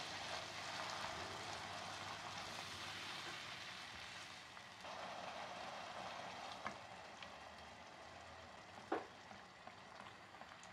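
Food sizzling in hot oil in a pan, slowly fading, with a few light clicks, the loudest about nine seconds in.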